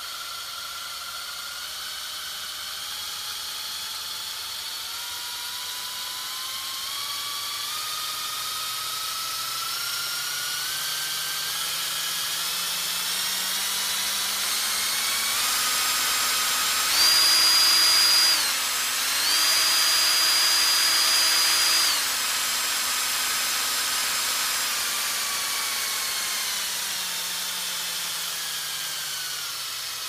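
Power drill running with a continuous whine. Its speed slowly climbs in small steps to a loud peak a little past the middle, dips briefly, then slowly winds back down.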